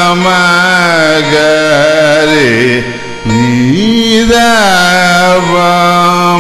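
Carnatic music: a varnam in raga Saveri, one melodic line of long held notes with sliding ornaments, with a brief break about three seconds in.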